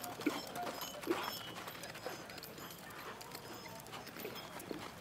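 Hoofbeats of a horse working in the arena: irregular knocks and thuds, the loudest about a quarter second and about a second in.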